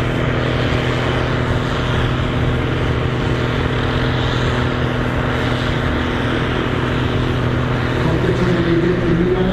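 Mercedes-Benz MB Trac tractor's six-cylinder diesel engine running steadily under heavy load as it drags a tractor-pulling sledge.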